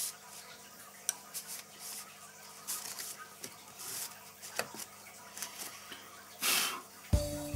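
Metal blade scraping and clicking against the soft lead came of a leaded stained-glass window as the lead edge is pried up, in short irregular strokes with one longer scrape near the end. Music starts just before the end.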